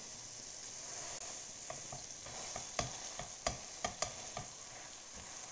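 Chicken pieces sizzling on a flat griddle without oil, while a heavy stone is pounded down on them. About ten sharp knocks come between roughly two and four and a half seconds in.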